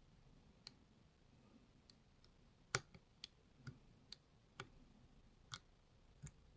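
Small, sharp metallic clicks of a lock pick working the pins inside a Lockwood MT5 lock: about ten irregular ticks, the loudest a little under three seconds in, as the pins are probed and set.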